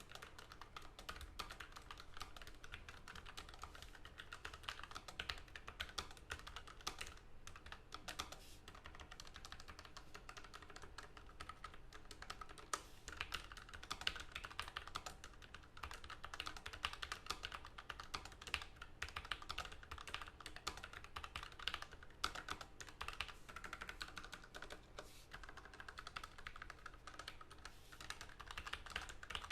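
Typing on a Logitech MX Mechanical Mini keyboard with tactile quiet (brown) switches: a continuous, uneven run of quick key clicks.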